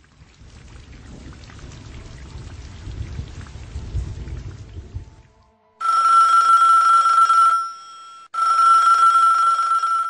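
A rumble of rain and thunder swells and fades out about five seconds in. Then a telephone rings twice, each ring a loud, steady, high tone nearly two seconds long with a short gap between.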